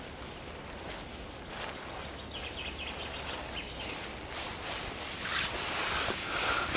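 Woodland ambience: a steady outdoor hiss of air and leaves. Rustling and footsteps through undergrowth and leaf litter grow louder near the end.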